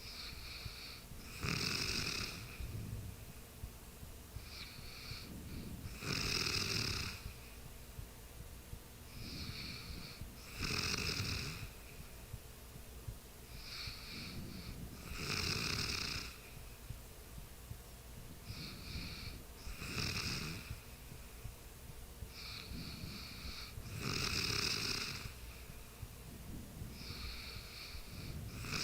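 A sleeping person snoring in a steady rhythm, with a loud snore about every four and a half seconds and a fainter, shorter breath sound between each.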